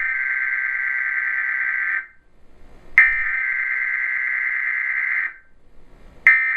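Emergency Alert System digital data bursts (the SAME header tones) from a TV speaker: harsh, steady buzzing bursts of a few seconds each, three in all with about a second's pause between them.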